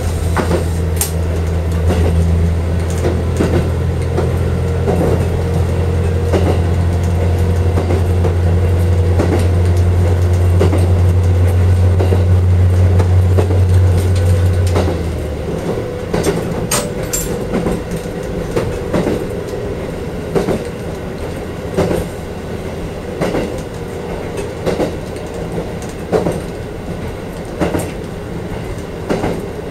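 KiHa 40 diesel railcar heard from inside at the cab end: the diesel engine drones steadily under power for about the first fifteen seconds, then drops away as power is shut off and the railcar coasts. After that, the wheels click regularly over the rail joints, about one click every second and a half, over the rumble of the running gear.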